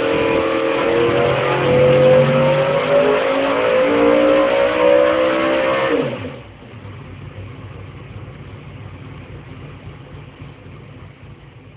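A car engine running at high revs, its pitch wavering slightly. About six seconds in it drops away suddenly to a much quieter steady hum, which fades out near the end.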